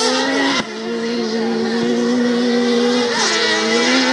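Autocross race car engines running hard at high revs, the pitch holding mostly level and dipping briefly about three seconds in. The loudness drops suddenly about half a second in.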